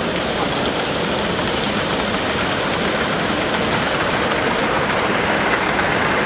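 Large-scale model locomotive and coaches running along the track, the wheels rumbling on the rails as the train passes close by, over a steady background noise of a busy hall.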